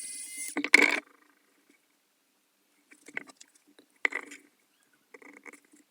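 Background music cutting off, followed by a loud rustling burst and then a few short, scattered scrapes and clicks of handling with long quiet gaps between.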